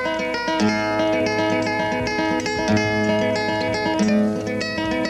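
Flamenco-style Spanish acoustic guitar music: quick strummed chords and plucked notes over low bass notes that sound again every second and a half or so.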